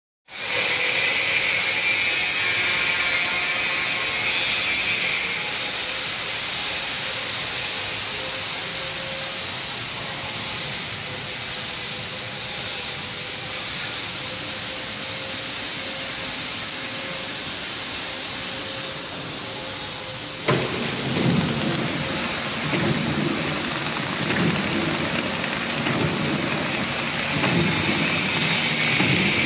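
Automatic sponge packing machine running while it wraps scouring sponges: a steady mechanical whirr with a high whine. About twenty seconds in, the sound changes abruptly and a low, uneven rhythmic thumping joins it.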